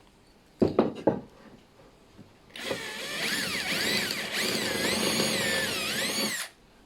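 Power drill boring a small hole into a wooden shelf, running for about four seconds with its pitch wavering up and down as the bit bites. A couple of sharp knocks on the wood come first.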